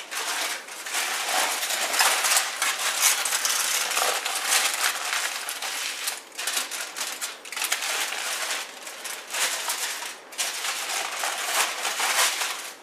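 Irregular crinkling and rattling from handling while fish is prepared for the braai, dense with small clicks, with short pauses about six and ten seconds in.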